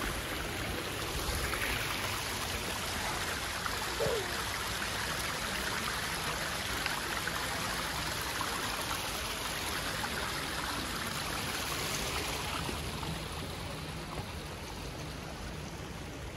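Steady rushing noise of a light wind blowing across the microphone, with a brief higher sound about four seconds in.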